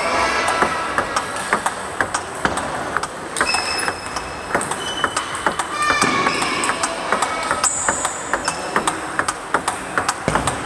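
Table tennis rally: the celluloid/plastic ball clicks rapidly and unevenly off the bats and the table, several knocks a second, with short high squeaks scattered between the hits.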